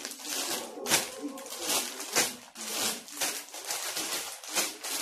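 Clear plastic packs of cashew nuts crinkling and rustling in irregular bursts, several a second, as they are picked up and shuffled on a table.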